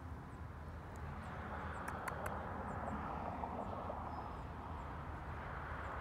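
Steady low rumble of open-air background noise, with a few faint, short, high chirps and a couple of sharp clicks about two seconds in.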